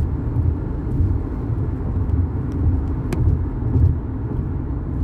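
Steady low rumble of a car's road and engine noise heard from inside the cabin while driving, with one sharp click about three seconds in.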